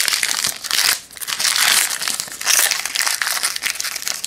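Foil wrapper of a football trading-card pack being torn open and crinkled, a loud crackling with a short lull about a second in.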